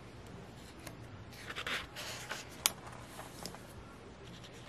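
Stiff paper and card of a photo-book album rustling as it is handled and a heavy page is turned, with one sharp tap about two and a half seconds in.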